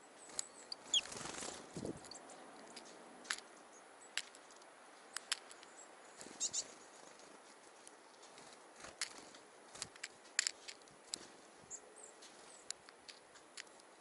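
Small wild birds at a hand feeder, tits and nuthatches, giving scattered short high calls and chirps among sharp little clicks. A brief rustle with a low thump comes about one to two seconds in.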